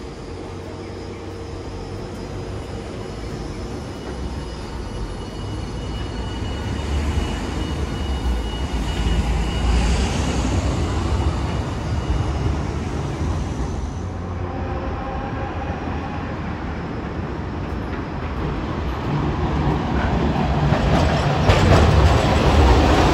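Hiroden Green Mover LEX low-floor tram pulling away from the stop, its running noise and a steady motor whine building for the first ten seconds or so. After a cut, 700-series tram 702 rolls in along the rails, its wheel and track noise growing loudest near the end.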